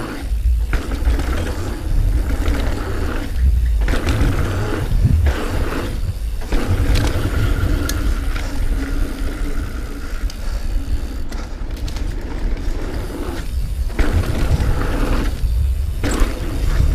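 Mountain bike riding on dirt singletrack: tyres rolling and scraping over the trail and the bike rattling, under steady wind buffeting on the GoPro's microphone.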